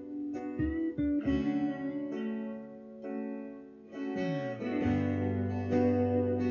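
Live band music from a concert recording, led by strummed acoustic guitar chords, with a bass line filling in about five seconds in.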